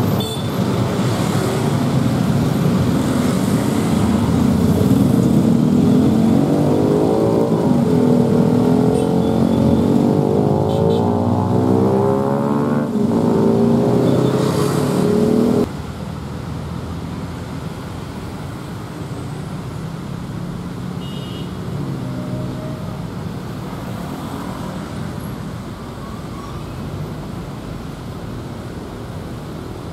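Road traffic at a railway level crossing: a dump truck's diesel engine and motorbikes running close by, loud and dense for the first half. About halfway the sound drops suddenly to quieter, steady traffic of cars and motorbikes crossing the tracks.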